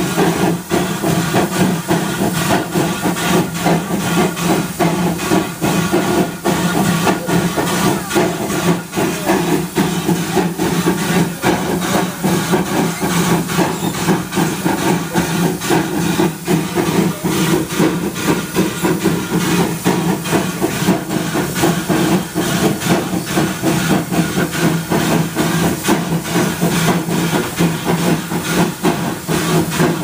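Small steam locomotive hissing steam steadily, with a low hum beneath the hiss.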